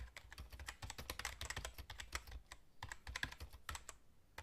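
Computer keyboard typing: a rapid, uneven run of key clicks with brief pauses, the sound laid over text being typed out on screen.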